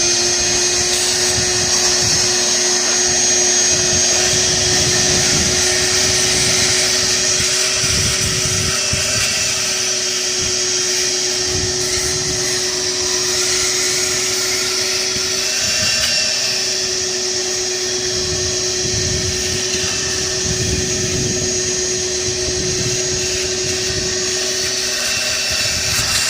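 Shop vacuum running steadily with a constant motor whine, sucking grinding debris out of the inside of a tractor tire. The pitch wavers briefly about sixteen seconds in.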